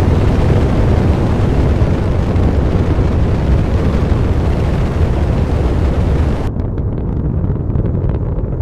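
Animated space shuttle launch: the rocket engines give a loud, steady, dense rumble. About six and a half seconds in, the hiss above it drops away and the low rumble carries on.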